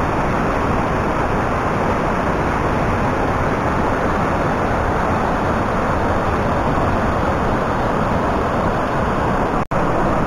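The steady roar of the Rhine Falls, a huge volume of water crashing down over the rocks close by. The sound cuts out for an instant near the end.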